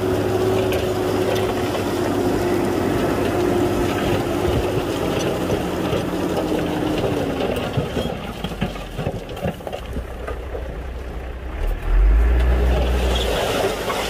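Diesel engine of a Shantui crawler bulldozer running under work, with a steady whine that falls away about halfway through. A loud low rumble swells briefly near the end.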